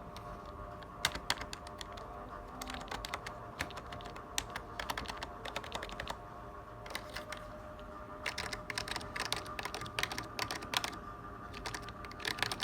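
Typing on a computer keyboard, the keys clicking in quick bursts with short pauses between, over a faint steady hum.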